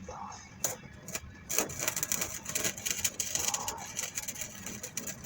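Welding arc crackling steadily as a piece of the exhaust is welded up, starting about a second and a half in after a couple of sharp clicks.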